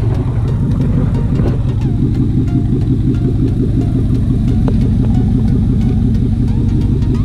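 GMC Sierra 1500's 5.3L Vortec V8 with dual exhaust idling steadily, still warming up after a cold start.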